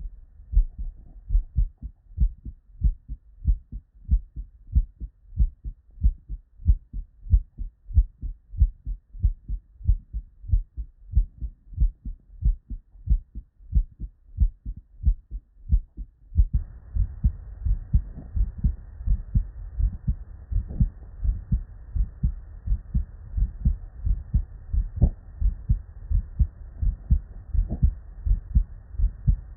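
Normal human heart sounds heard through a stethoscope: a regular lub-dub of S1 and S2. A little over halfway through, the recording changes, and a faint steady hiss sits behind the beats.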